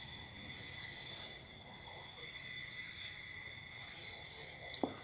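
Steady high chirring of crickets, with the soft pour of a homemade fizzy bougainvillea soda from a plastic bottle into a glass, and a short knock near the end.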